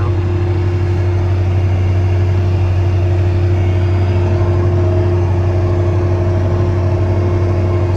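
Steiger Panther 1000 four-wheel-drive tractor's diesel engine running steadily under way, a constant deep drone with a steady higher hum.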